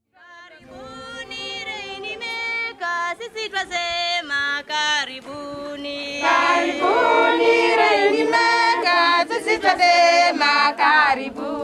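A choir of voices singing in harmony, a cappella, starting out of silence about half a second in and swelling louder about six seconds in.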